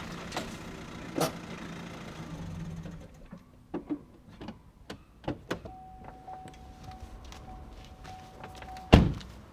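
Opel Astra hatchback's engine running as the car pulls up, cutting off about three seconds in. A few clicks and knocks follow, and a steady high tone sounds for about three seconds. Near the end the car door is slammed shut, the loudest sound.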